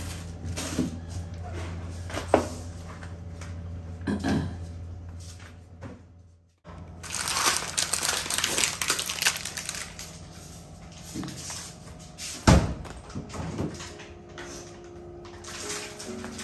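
Plastic grocery bags and packaging crinkling and rustling as groceries are handled, with one sharp knock about twelve seconds in. Before that, a steady low hum with a few light knocks, broken off abruptly by a moment of silence.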